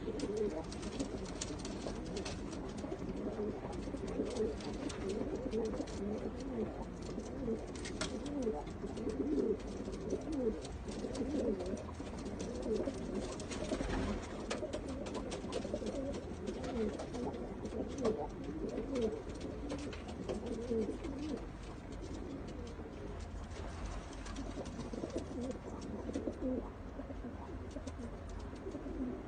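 Many male Hanani domestic pigeons cooing at once, their low coos overlapping without pause, with scattered faint clicks.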